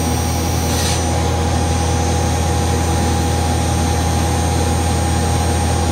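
Spindle of a 1998 Okuma Howa Millac 438V CNC vertical machining center spinning steadily at high speed without cutting, during a spindle-speed run-up. It makes an even machine hum with a steady mid whine and high-pitched whine, and the top of the hiss drops away about a second in.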